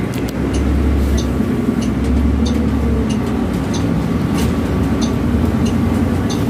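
City bus running along the road, heard from inside the cabin at the front: a steady low engine and road drone, with a heavier rumble for the first three seconds. Faint light ticks come roughly every half second.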